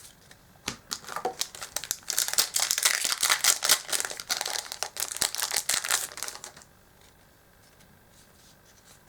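Foil wrapper of a Yu-Gi-Oh! Duelist Alliance booster pack crinkling and tearing as it is ripped open, a dense crackle that stops suddenly about two-thirds of the way in.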